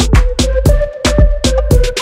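Background music with a steady electronic drum beat.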